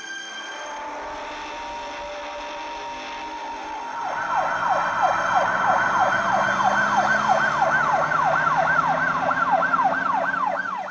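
Yelp siren wailing rapidly up and down, about three sweeps a second, starting about four seconds in and cutting off abruptly near the end. Before it, a steady held tone.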